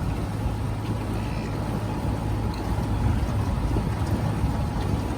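Small motorboat's engine running steadily while under way: a continuous low hum with a rushing noise over it.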